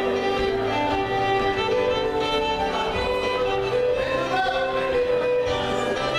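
Fiddle playing a contra dance tune, with keyboard accompaniment.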